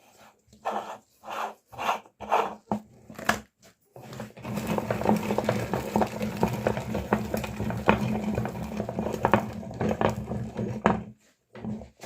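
A run of separate clattering, crunching strokes, then about four seconds in an electric meat grinder's motor starts running with a steady hum, crackling as the small hard candies are crushed, and it stops about a second before the end.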